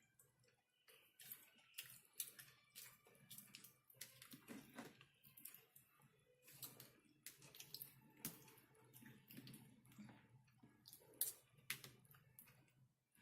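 Close-miked eating sounds of KFC whipped potato: soft wet chewing and mouth smacks with many short sharp clicks, several a second.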